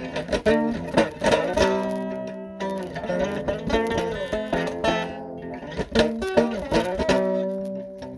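Guitar music: a slow passage of plucked notes and chords, each ringing on after it is struck.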